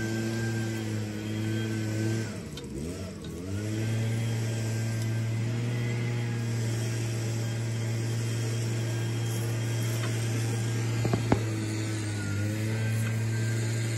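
Corded electric leaf blower-vacuum with a leaf-mulching cutter, its motor running with a steady hum. About two seconds in it winds down briefly and spins back up, and it dips again briefly near the end. A few sharp clicks come a little after eleven seconds.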